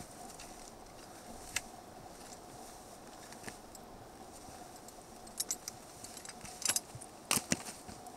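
Scattered clicks, knocks and scrapes of a hiker scrambling up bare rock: boots and a trekking pole tapping the stone, with a light jangle of gear. The clicks come thicker and louder from about five to seven and a half seconds in, over a faint steady hum.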